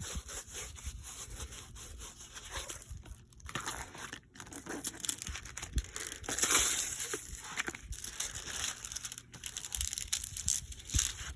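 Packaging crinkling and rustling with small crackles as a soft-canvas diamond painting kit is handled and unwrapped. There is a louder stretch of crinkling about six seconds in.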